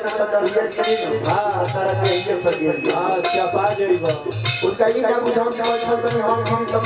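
Live Bhojpuri dugola folk music: a man sings into a microphone over a steady beat of low hand-drum strokes and rapid metallic clinking of hand cymbals, with long held instrumental tones underneath.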